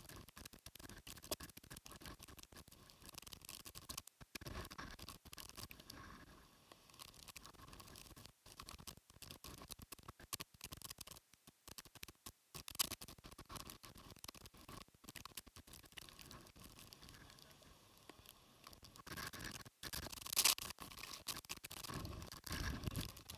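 Wind-driven rain and spray crackling and pattering directly on the camera's microphone, a dense run of irregular small clicks. It grows louder, with more low rumble, about 19 seconds in.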